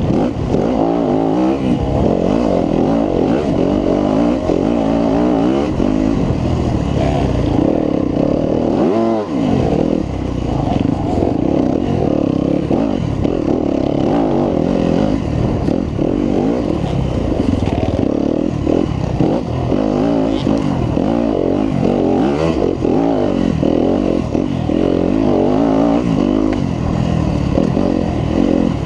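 2018 Yamaha WR250F's single-cylinder four-stroke engine being ridden hard, its revs rising and falling constantly with the throttle, with a brief sharp drop and climb in revs about nine seconds in.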